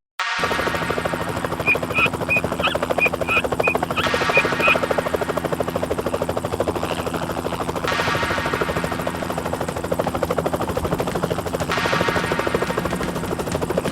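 Helicopter rotor sound effect: a steady, rapid chopping with a low engine hum under it. A string of short high chirps sounds over it about two to five seconds in.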